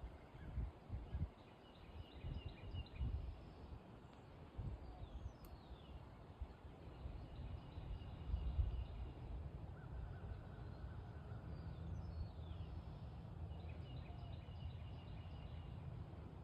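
Small birds singing in a tree: faint, repeated chirps and short trills, some phrases sliding downward. A low, uneven rumble sits under them, strongest in the first few seconds.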